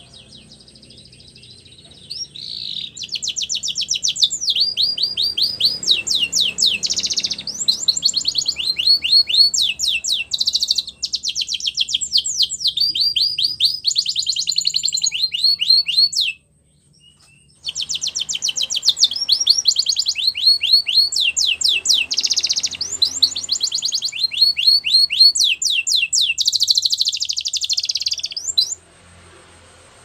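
Male domestic canary singing: long runs of fast, repeated trilled notes, high-pitched, with a break of about a second in the middle, stopping shortly before the end.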